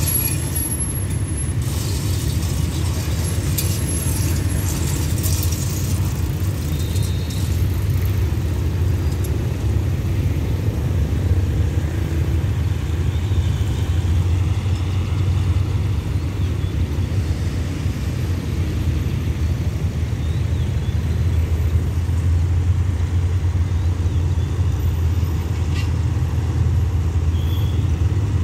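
Low steady rumble of road vehicle engines, with motorcycles riding over the level-crossing tracks in the first few seconds.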